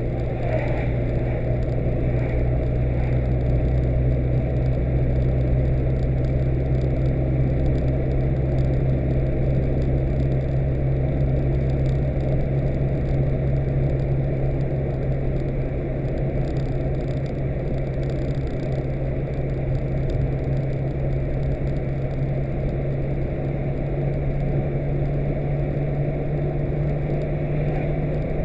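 Car driving at a steady pace, heard from inside the cabin: a constant low engine drone with road and tyre noise.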